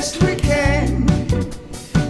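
Song: a sung vocal melody over a band backing with guitar and a steady beat.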